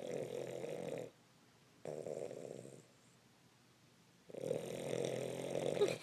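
Terrier snoring in slow breaths: one snore ends about a second in, another comes about two seconds in, and a longer one starts past four seconds.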